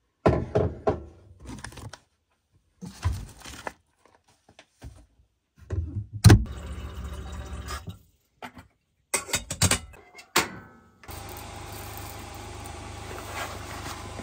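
Kitchen handling sounds: containers, a stainless kettle and a hand coffee grinder knocked and set down on a countertop, with one loud thunk about six seconds in. Right after it comes a couple of seconds of water running from the tap into the kettle. From about eleven seconds a steady hum takes over.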